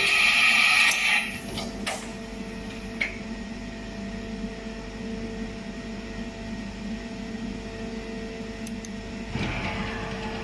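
Vertical machining center running under a test cycle: a steady machine hum, a loud rushing noise for the first second or so, two sharp clicks a second apart, and the rushing rising again near the end.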